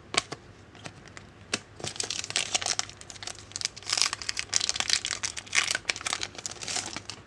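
Crinkling and tearing of a foil trading-card pack wrapper as it is handled and opened, with a couple of sharp clicks just before.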